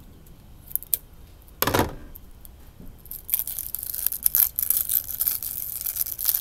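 Plastic wrapping on a slime tub being cut and torn open: a couple of small clicks, a short loud rip about two seconds in, then continuous crinkling and crackling as the plastic is peeled off by hand.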